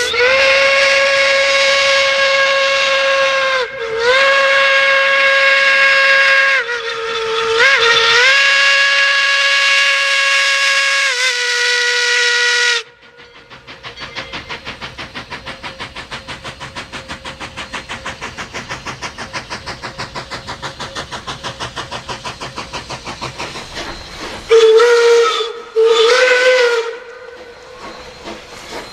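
Steam locomotive whistle blowing one long blast of several tones together, dipping briefly a few times before cutting off about 13 s in. Then the running locomotive's rapid, even beat of about four strokes a second, and near the end two short whistle toots.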